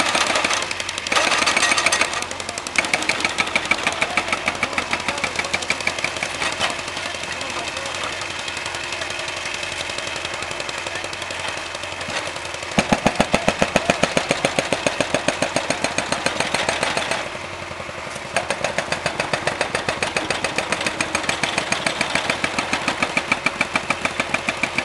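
Engine-driven jumping-jack tamping rammer pounding the track ballast, a fast even hammering with its small engine running. The strokes are loudest for a few seconds past the middle, ease off briefly, then resume.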